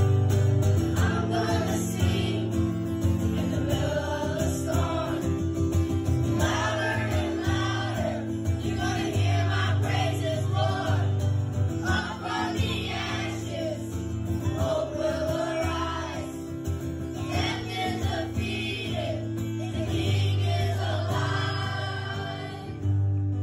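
Background music: a gospel-style song with voices singing a melody over sustained bass notes.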